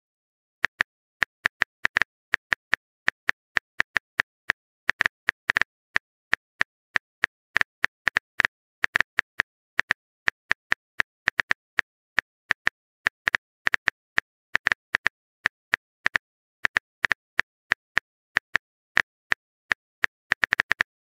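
Smartphone keyboard typing sound effect: short, sharp tap clicks at an uneven pace, about four a second.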